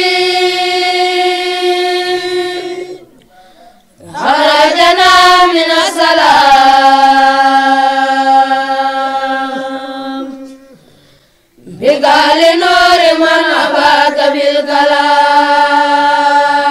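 Boys' voices chanting a Quran recitation together, in long drawn-out held notes. There are three phrases, each opening with a wavering melodic ornament and then holding steady, with short pauses for breath a few seconds in and again about ten seconds in.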